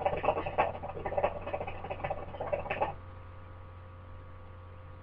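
Hookah water bubbling as smoke is drawn through the hose: a rapid, irregular gurgle that stops about three seconds in, leaving a faint steady electrical hum.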